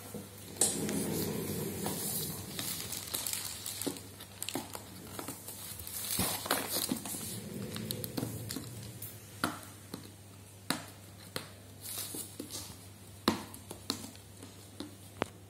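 Packaging crinkling and rustling as a boxed tablet is handled and its wrapping picked open. The rustling is strongest in the first few seconds, and scattered sharp taps and knocks on the cardboard box follow.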